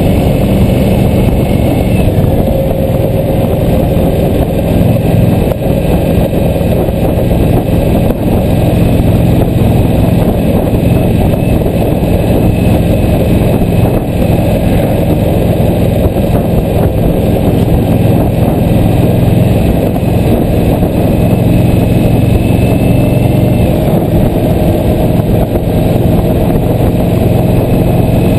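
Cruiser motorcycle engine running steadily at cruising speed, with a loud rush of wind and road noise.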